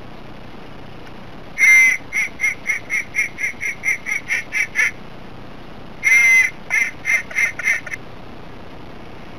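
Duck call blown in two runs of quacks, each opening with one long note and followed by quick, evenly spaced short quacks: about a dozen in the first run, and about five in the second a second later.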